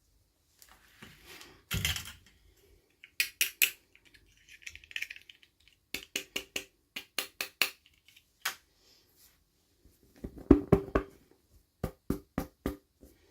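Small plastic toy pieces and packaging being handled: sharp clicks and taps in small groups of two to five, with brief rustling between them.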